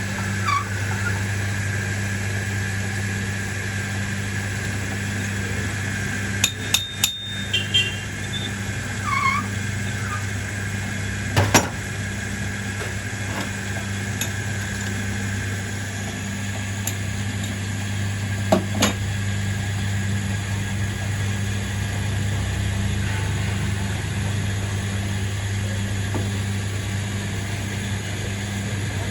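A workshop machine's motor running steadily with a deep hum and a high whine, with a few sharp metallic clicks and knocks, a cluster around six to eight seconds in and single ones near eleven and eighteen seconds.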